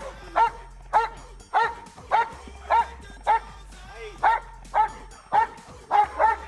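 Belgian Malinois barking repeatedly at an even pace of about two barks a second: guard barking at an approaching helper in a bite suit.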